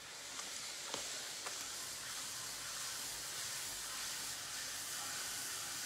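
Wet, slip-covered hands pressing on firm, cold black clay as it spins on a pottery wheel, a steady wet hiss that builds during the first second and then holds, with a few faint ticks.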